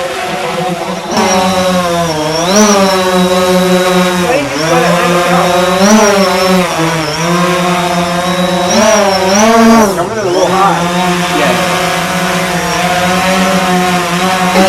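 DJI Phantom 4 quadcopter's propellers buzzing loud and close, a steady pitched hum whose pitch dips and rises several times as the motors adjust. The drone is flying itself back under return-to-home.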